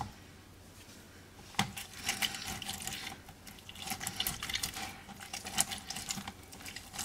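A halved blood orange being pressed and twisted by hand on a plastic reamer citrus juicer: irregular wet squishing and scraping as the juice is squeezed out, starting about a second and a half in.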